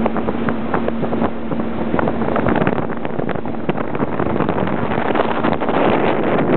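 CraigCat power boat's outboard motor running steadily under way, with frequent short slaps of water against the hulls and wind on the microphone.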